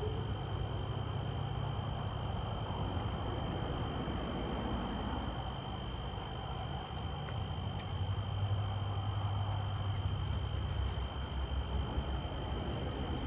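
Crickets trilling steadily in a high, even tone at dusk, over a low steady rumble.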